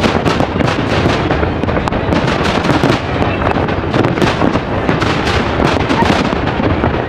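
Aerial firework shells bursting in quick succession, several bangs a second over a continuous rumble.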